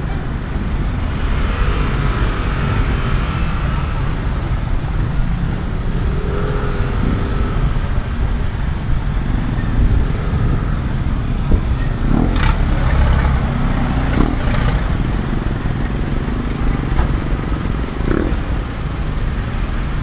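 Street ambience with passing motor traffic: a steady low rumble of vehicle engines going by, a few of them briefly louder, with people's voices in the background.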